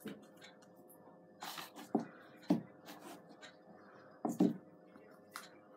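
Fluffy slime being kneaded and pulled apart by hand, giving several short sticky squelches and crackles, the loudest about four and a half seconds in. The slime is still sticky and under-activated.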